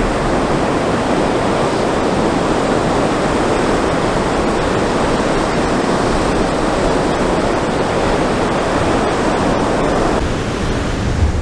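Ocean surf breaking and washing in, a steady rushing noise that eases a little about ten seconds in.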